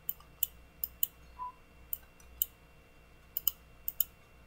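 Computer mouse clicking: about ten short, sharp clicks at irregular intervals, a couple of them in quick pairs toward the end.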